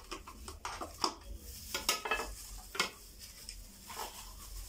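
A spoon scraping and tapping as yogurt is scooped from its cup into a plastic food-chopper bowl, with a scatter of small clicks and knocks, a few sharper ones among them.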